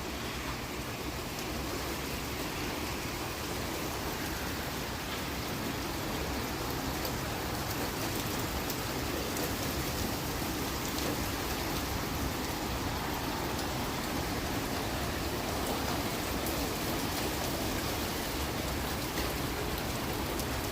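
Steady rain falling during a thunderstorm, a continuous hiss with fine drop ticks, growing a little louder over the first few seconds.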